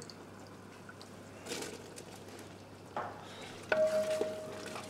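Boiled kidney beans tipped into a simmering curd gravy and stirred with a wooden spoon in a metal pan: soft, wet stirring and scraping. It is faint at first and picks up in the second half.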